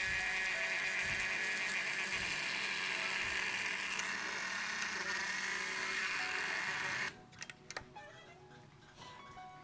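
Handheld electric rotary tool running steadily with a grinding bit, porting a Yamaha Jupiter Z cylinder head. It stops abruptly about seven seconds in, and a few light clicks follow.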